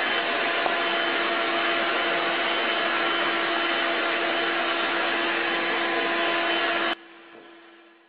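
Vacuum cleaner running steadily, a constant rushing noise with a fixed motor whine, cutting off abruptly about seven seconds in and leaving a faint, fading tail.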